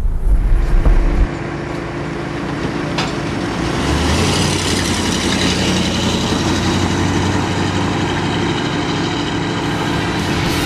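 1960 Ford Thunderbird's 352 V8 with dual exhaust running as the car drives, with a heavy low wind rumble for about the first second. Then steady engine and road noise, which gets louder about four seconds in.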